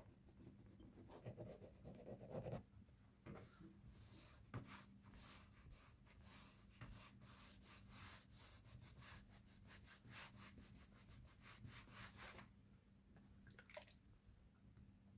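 Faint, quick back-and-forth rubbing of a cloth on a leather chair seat, scrubbing off tape glue residue; the rapid strokes stop about twelve seconds in.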